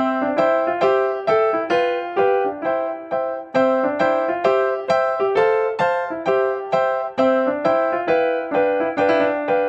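Background keyboard music: a steady run of single notes, about two or three a second, each note dying away.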